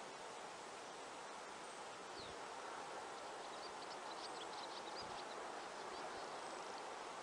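Outdoor nature ambience: a steady, even hiss with faint high chirping in a quick run of short notes from about three to six seconds in.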